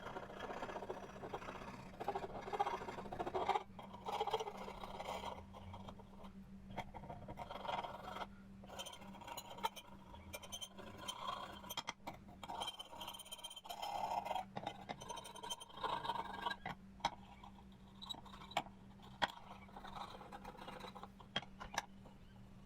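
Irregular hand-scraping strokes on a metal plate being cleaned, over a steady low hum.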